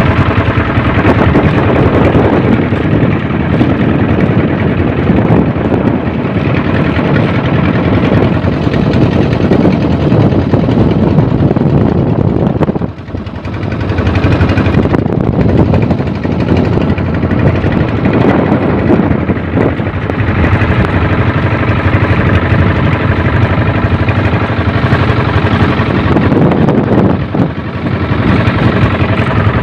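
Outrigger boat's inboard engine running steadily as the boat travels, a loud, even engine note that dips briefly about halfway through.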